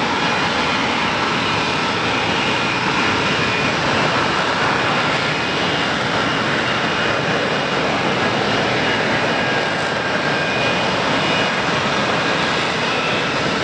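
F-35B Lightning II hovering: its jet engine and lift fan make a steady, loud jet noise with a faint high whine over it.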